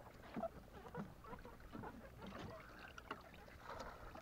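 Faint, irregular slapping and lapping of sea water against the hull of a small fishing boat.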